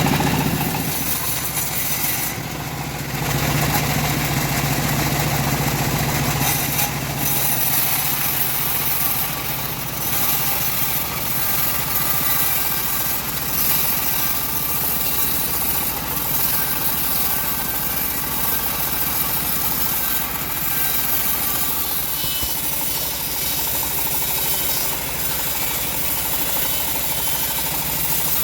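Homemade engine-driven bandsaw running steadily, its blade sawing lengthwise through a semi-dry teak log with a continuous high hiss over the engine's drone.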